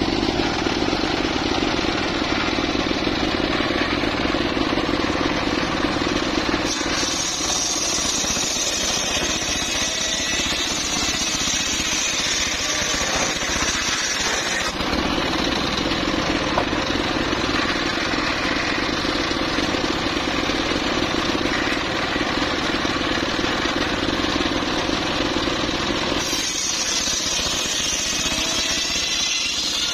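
Homemade engine-driven circular saw bench running steadily, its blade sawing through teak wood twice: a long cut from about 7 to 15 seconds in and another starting near the end, each adding a high ripping hiss over the engine's hum.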